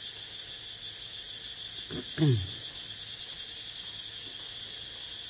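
Steady, high-pitched chorus of crickets. One short falling vocal sound comes about two seconds in.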